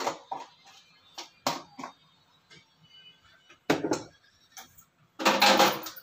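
Kitchen clatter from steel pots and utensils: a string of short knocks and clinks, with a longer clattering rattle near the end.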